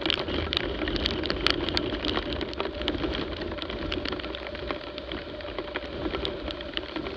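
Raindrops striking the camera on a moving motorcycle in quick, irregular clicks over a steady rush of wind and road noise, with the motorcycle running steadily at highway speed.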